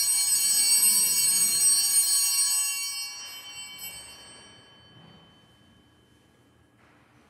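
Altar bells ringing at the elevation of the chalice, marking the consecration. The ringing stops about three seconds in and dies away over the next second or so.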